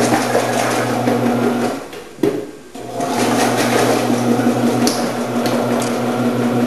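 Omcan HLC 300 commercial vegetable cutter running with its blades cutting vegetables: a steady motor hum with dense clattering. It stops for about a second, with one click in the break, then runs again.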